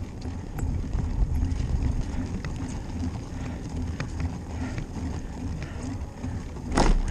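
Bicycle ride noise on a paved path: a steady low rumble of wind and tyres with light clicks and rattles, and one louder knock near the end.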